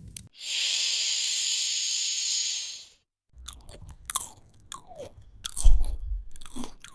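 Two comedic sound effects in a row. First a steady high hiss lasts about two and a half seconds and cuts off suddenly. After a short gap come irregular crunching and crackling sounds, with a deep thump about two-thirds of the way through.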